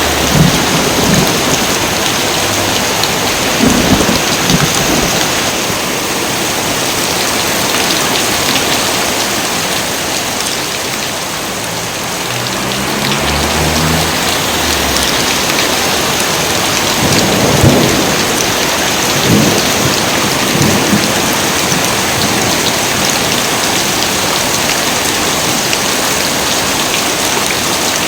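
Heavy rain falling steadily, with thunder rolling several times through it, the loudest peal about seventeen seconds in.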